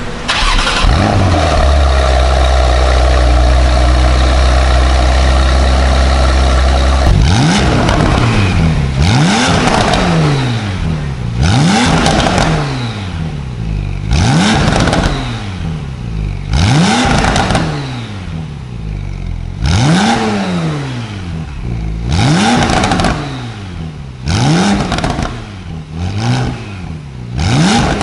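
Porsche 991.2 Carrera GTS twin-turbo 3.0-litre flat-six, running through an Akrapovic full exhaust system, settling from its start-up flare into a steady high idle. About seven seconds in it is blipped through about ten sharp revs, each rising and dropping back, coming closer together near the end.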